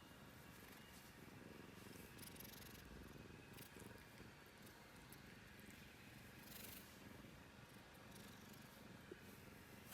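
Domestic cat purring steadily close to the microphone, faint, with a few soft rustles of fur or movement.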